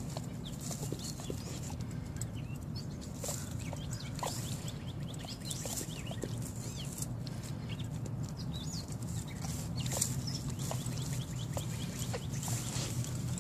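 Pit bull sniffing and snuffling into a nest of baby rabbits, with short irregular sniffs and rustles in the grass. Small birds chirp in the background over a steady low hum.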